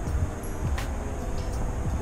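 Low, uneven rumble of wind buffeting the microphone, with soft background music held underneath.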